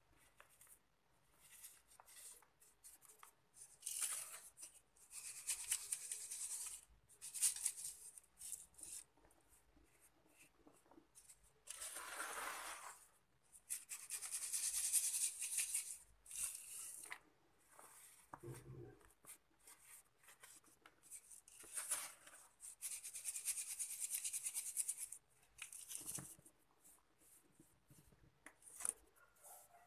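Powdery sand-and-cement mix crumbled by hand and sifted through the fingers: repeated stretches of gritty hissing as the grains fall onto the heap. The longest and loudest stretch comes about halfway, when sand is poured from a tin.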